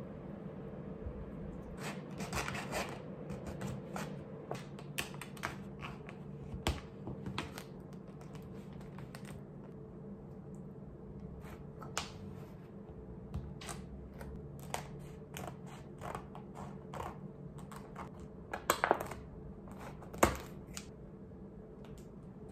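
Irregular taps, clicks and scrapes of kitchen work as a cake is cut up and packed for freezing, over a steady low hum. A couple of sharper knocks come near the end.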